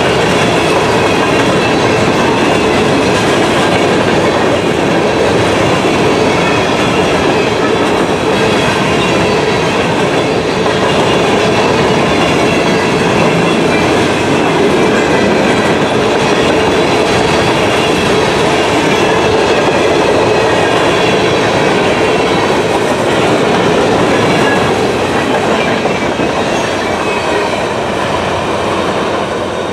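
Empty covered hopper cars of a freight train rolling past at speed: a steady, loud rumble and clatter of steel wheels on the rail joints. It fades near the end as the last car goes by.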